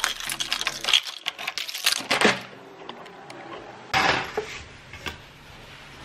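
Handling noise: a quick run of clicks and rattles for about two seconds, then two short bursts of noise about four and five seconds in.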